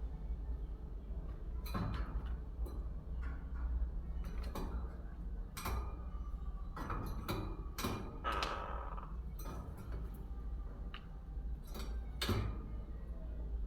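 Irregular light taps and knocks, more than a dozen, over a steady low hum, with a longer scraping sound about eight seconds in.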